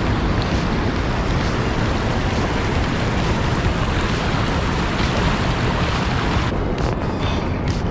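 River water rushing over shallow rapids, a steady loud rush with wind rumbling on the microphone.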